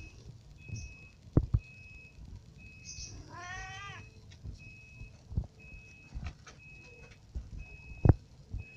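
A young kitten gives one short, slightly wavering meow about three and a half seconds in. Several dull thumps fall around it, the loudest near the end, and a faint high beep repeats about once a second.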